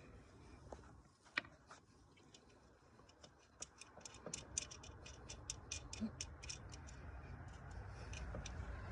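Faint clicking of a 10 mm socket ratchet in short irregular runs, busiest in the middle, as nuts are backed off the battery terminals.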